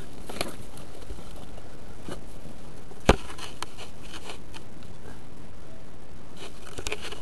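Faint, scattered scrapes and crackles over a steady hiss, with one sharp click about three seconds in; no barking.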